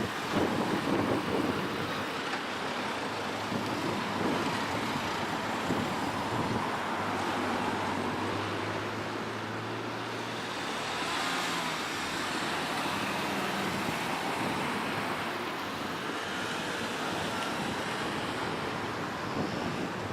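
Road traffic: cars driving past in a steady wash of tyre and engine noise, with one engine's low hum standing out near the middle.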